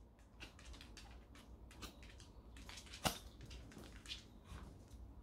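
A small toy dog's claws ticking faintly on a laminate floor as it walks, then wet licking as it grooms itself, with one sharper click about three seconds in.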